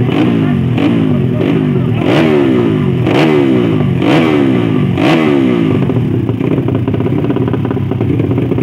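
Drag-race motorcycle engine revved in sharp throttle blips, about one a second, each falling away in pitch, then running more evenly for the last few seconds.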